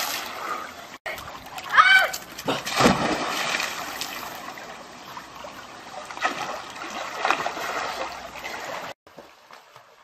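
Swimming-pool water splashing and churning after a jump, with further splashes from someone moving in the water, and a short high cry about two seconds in. The splashing cuts off suddenly near the end.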